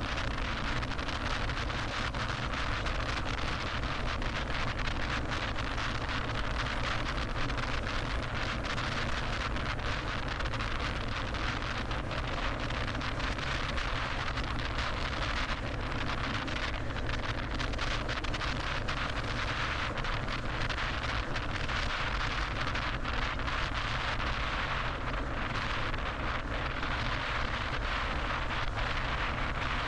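Steady road and wind noise of a car driving at freeway speed.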